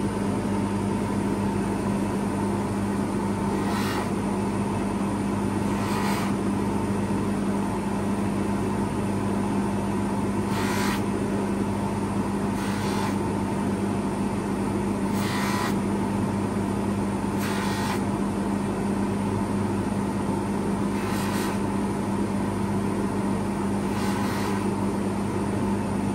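Bench polishing motor running steadily with a low hum, its mop spinning. About eight short hissing rubs stand out as a watch case is touched against the spinning mop to polish it.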